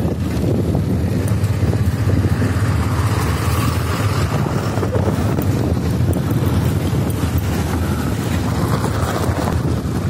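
Heavy wind buffeting the microphone of a phone carried on a moving two-wheeler, with the bike's engine running steadily underneath.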